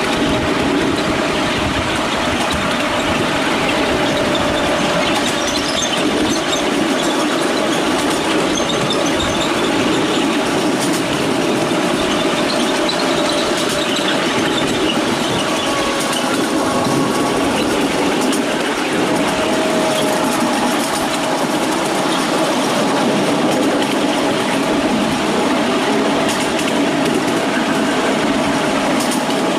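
Miniature railway train running, heard from on board the carriage: a steady rumble and clatter of wheels on the rails, with a faint thin whine now and then.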